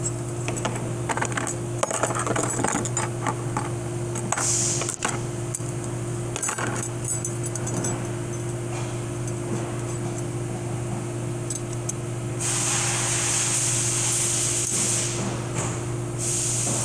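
Metal clinks and taps as 4L60E transmission parts are handled, then a loud hissing spray from about two-thirds of the way in, coming in pulses near the end, over a steady low hum.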